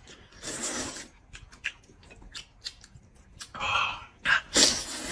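Wide huimian noodles being slurped from a bowl of broth: a short slurp about half a second in and two louder slurps near the end, with small mouth and chopstick clicks of eating between them.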